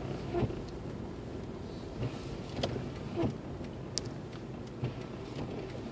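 Inside the cabin of a 2006 Lexus IS250 AWD driving slowly through snow: a low, steady rumble from the car, with a few light clicks and knocks.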